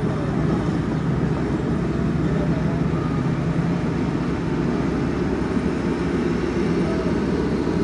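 Diesel engine of earthmoving machinery running steadily, a dense low drone with a steady hum.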